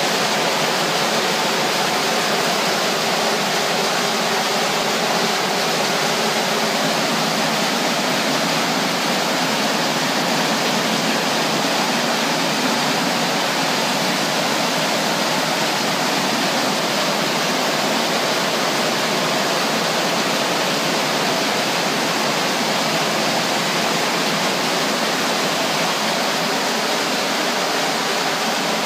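Heavy rain pouring down in a thunderstorm, a loud, steady rush with no thunderclap.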